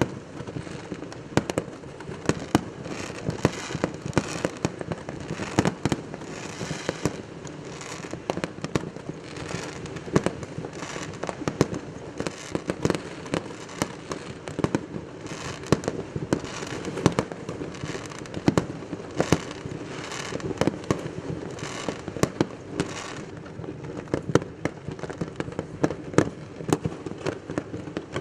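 Many fireworks going off at once, a dense, irregular run of sharp bangs over continuous crackling, with no pause.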